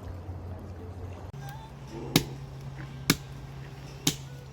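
Three sharp chops about a second apart, firewood being split into small kindling pieces for a campfire.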